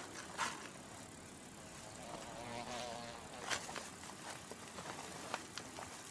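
Faint outdoor nature ambience with an insect buzzing briefly about two to three seconds in and a few soft clicks or rustles.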